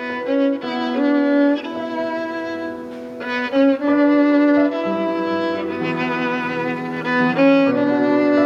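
Instrumental music led by a violin playing sustained, slowly changing notes, with a lower bowed string line coming in about five seconds in.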